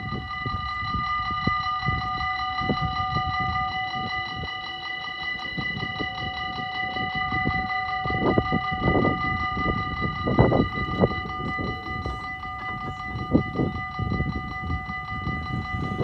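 Railway level-crossing warning bell ringing rapidly and without pause, the warning phase while the crossing barriers lower. A gusty low rumble runs underneath.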